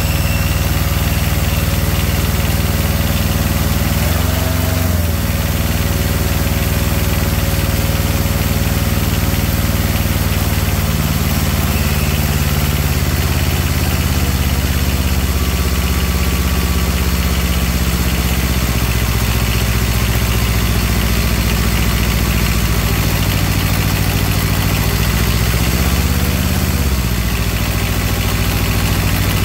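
Small diesel engine of a Carrier ComfortPro truck APU running steadily just after a glow-plug start. Its speed dips briefly about four seconds in and again near the end, as the throttle linkage is worked by hand.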